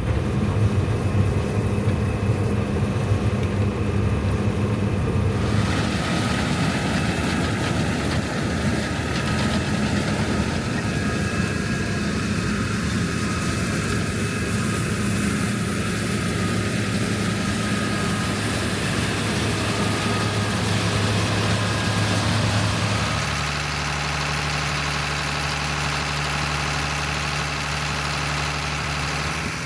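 Heavy diesel engine running steadily. A rushing noise joins about five seconds in, and the engine note shifts to a new steady pitch about 23 seconds in.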